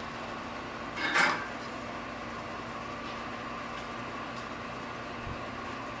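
Steady background hum, with one brief clink about a second in.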